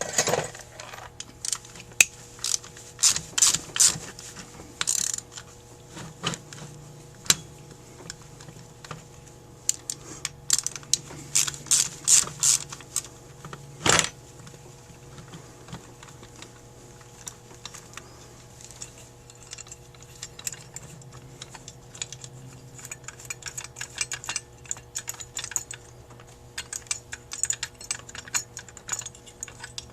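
Hand tools and small metal parts of a Carter AFB carburetor clicking and clinking during disassembly: irregular sharp clicks in clusters, with one louder knock about 14 seconds in. A faint steady hum runs beneath.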